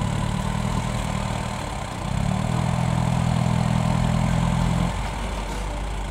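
Toyota Land Cruiser 75's diesel engine running as the truck, stuck in deep snow, works to get out. The engine note rises about two seconds in, holds steady, then drops back near five seconds.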